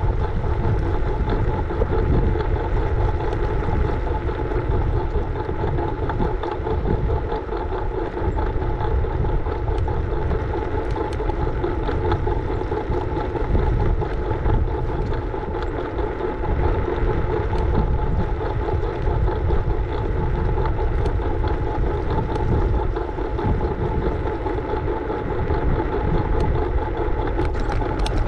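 Riding noise from a scooter in motion: a continuous rush of wind and road rumble with a steady high-pitched hum running through it.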